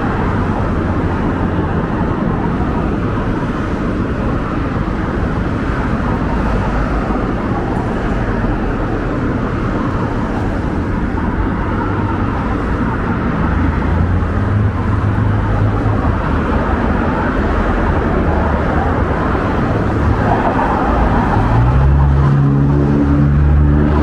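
Street traffic: cars passing with a steady rush of tyre and engine noise. A little before the end a low engine hum comes in and grows slightly louder, as of a heavier vehicle close by.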